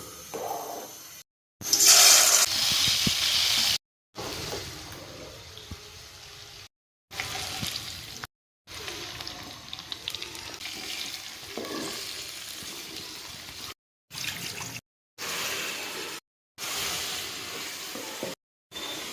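Kitchen sounds of a vegetable chowmein being made, in short clips split by sudden cuts to silence: water running, loudest as a bright hiss about two seconds in, and food being stirred and fried in a pan.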